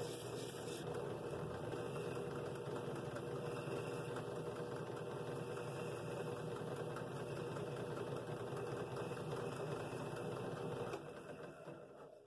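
Drill press running steadily with a sanding drum spinning in its chuck, used to sand the inside of a wooden bowl ring. About eleven seconds in the motor is switched off and winds down to silence.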